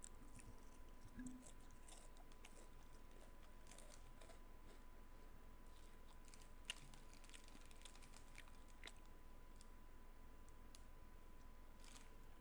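Near silence: room tone with a faint steady high hum and scattered small clicks, one sharper click about seven seconds in.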